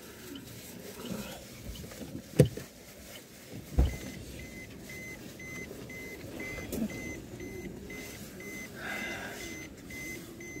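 Two sharp knocks inside a car, then the car's warning chime starting up and beeping evenly at roughly three beeps a second, with light rustling of food wrappers and clothing underneath.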